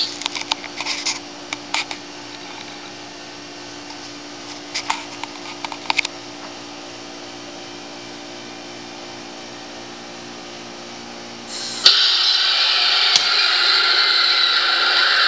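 Tekky Design animated coat rack monster Halloween prop: a few scattered clicks over a faint hum while it sits still, then about twelve seconds in its motor starts abruptly with a loud steady mechanical noise as the figure rises and spreads its arms.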